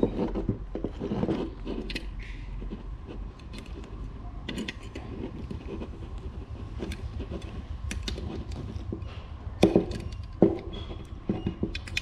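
Small metal clicks and clinks from a screw-on band clamp being handled and fitted to a wooden slingshot fork, with a couple of louder knocks of metal on wood near the end.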